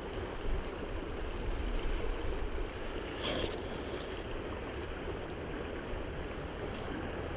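Fast, shallow river current rushing steadily over rocks, with a brief swish about three seconds in.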